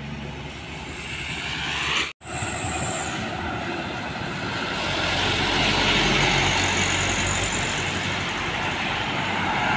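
Road traffic passing: a motorbike approaching, then after a brief dropout in the sound about two seconds in, a loaded light truck drives past with motorbikes, its noise swelling to the loudest point a little past halfway and staying up.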